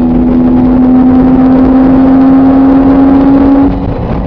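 Car engine and road noise heard from inside the cabin at motorway speed: a steady, loud drone that rises slowly in pitch as the car accelerates, then drops away shortly before the end.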